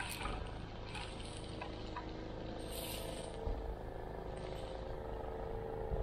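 Snowblower's small gas engine running steadily, a constant drone with a low hum.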